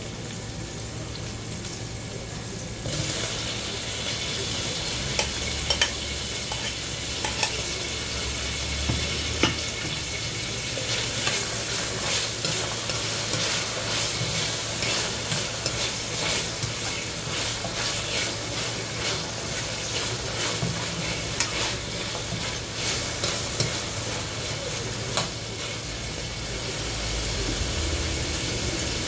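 Chopped vegetables sizzling as they sauté in a stainless steel pan, stirred with a metal spatula that scrapes and clicks against the pan. The sizzle gets louder about three seconds in.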